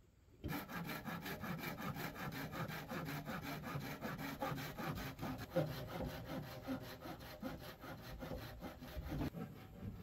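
Hand saw cutting through wood in quick, even back-and-forth strokes, starting about half a second in and stopping shortly before the end.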